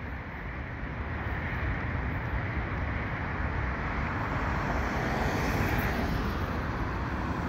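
Double-stack container freight train rolling past at a distance: a steady rumble and rolling noise of wheels on rail. A car on the road mixes in, growing louder toward the middle and easing off near the end.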